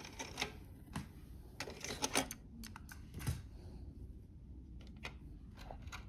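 Light mechanical clicks and taps on a Panasonic SA-PM07 mini stereo as its buttons are worked and it switches from tape to CD: several close together about two seconds in, then a few more spaced out.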